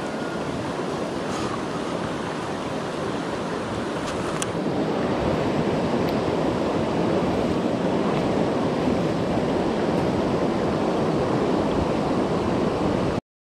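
Shallow, fast-flowing muddy river water rushing and swirling around the legs of people wading through it: a steady rush, a little louder after a few seconds, that cuts out for a moment near the end.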